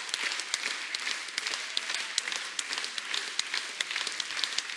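Audience applauding, with many individual sharp claps standing out.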